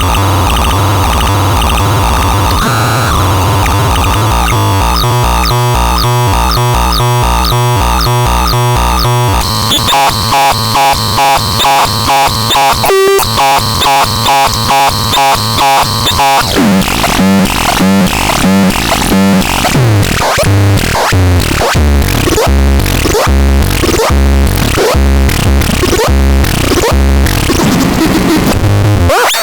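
Synthesizer playing harsh, noisy electronic tones. About five seconds in, a regular pulsing rhythm sets in, and it quickens about halfway through. In the latter half come repeating low pulses with sweeping pitches.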